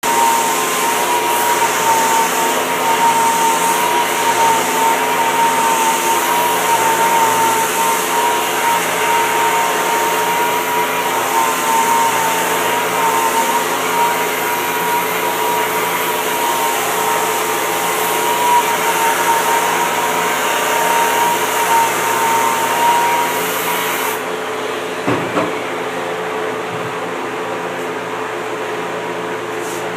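Handheld rotary sander with a foam sanding pad running steadily against a surfboard's glassed deck, a constant high motor whine over a loud hiss. The machine switches off about 24 seconds in, leaving a lower steady hum and a couple of light knocks.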